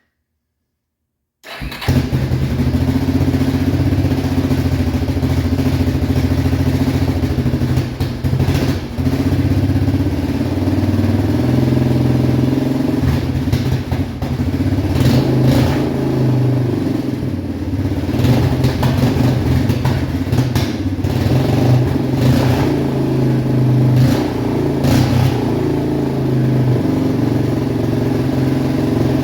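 1996 Yamaha Kodiak 400 ATV's single-cylinder four-stroke engine running steadily on choke from a stone cold start, coming in abruptly about a second and a half in after a brief silence. It fired right up, an easy cold start after the carburetor was gone through.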